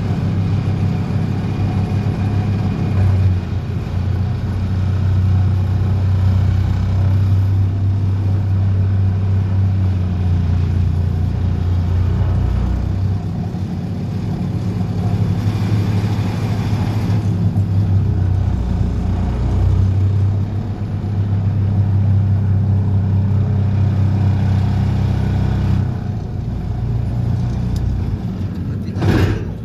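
Excavator-mounted DPD350T vibro hammer and excavator engine running under load, a steady low drone that dips and swells a few times. A short knock comes near the end.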